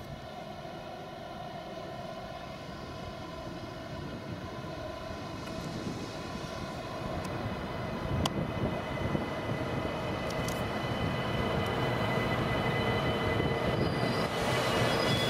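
Deutsche Bahn ICE high-speed train drawing closer along the platform track: a steady, whining electric hum with several held tones over wheel rumble, growing steadily louder.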